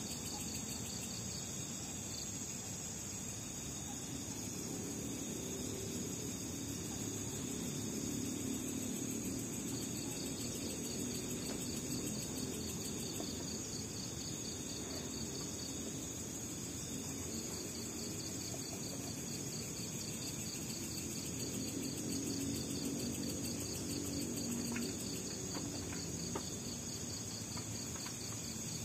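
Night insect chorus of crickets: a steady high trill with a second, rapidly pulsing chirp at a slightly lower pitch that drops out for a few seconds and returns. Under it a low rushing noise swells and fades twice.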